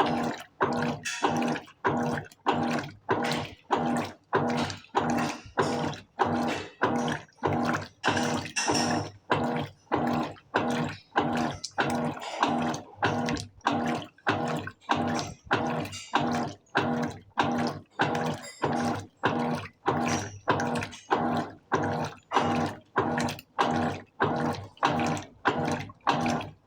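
Colormaq LCA14A 14 kg washing machine agitating a load of blankets. Its motor hums in short, even strokes, about three every two seconds, with water sloshing in the tub.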